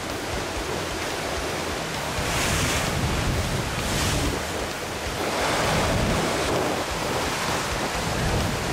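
Sea surf washing against a rocky shore, with wind rushing over the microphone. The wash swells louder a few times, about two and a half, four and six seconds in.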